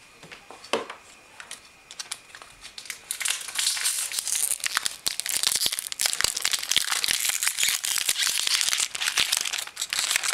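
Ink-cartridge packaging being torn and crumpled open by hand: a few faint rustles at first, then from about three seconds in a dense, steady run of crinkling and crackling.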